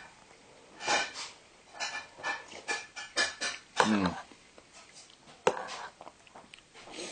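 A man eating soup: a string of short slurps and smacks, a low falling murmur about four seconds in, and a sharp click about five and a half seconds in.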